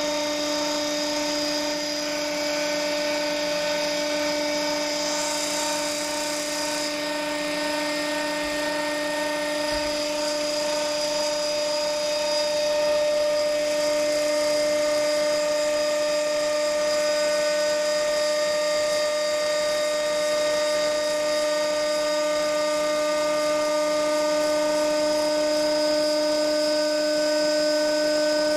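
Tubular centrifuge running at steady speed: a constant high-pitched whine over a motor hum, with no change in pitch.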